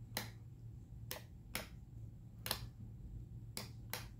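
Gearwrench 120XP 3/8" flex-head stubby ratchet, its pawl springs cut down, turned slowly in reverse with its pawls clicking over the teeth: six faint, separate clicks at uneven intervals, roughly one every half second to second.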